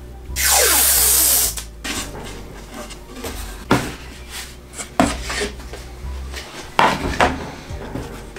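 Blue painter's tape pulled off the roll with a loud tearing hiss lasting about a second. It is followed by quieter rubbing as the tape is pressed down along the rocket's body tube and plywood fin, with a few sharp taps.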